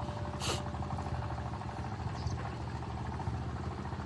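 A motor engine idling steadily, a low even hum, with a short hiss about half a second in.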